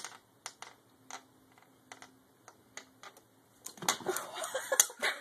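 Light clicks and taps, about two a second, as a kitten bats at window blind tassels on the sill; about four seconds in they turn into a dense flurry of clicking and rustling.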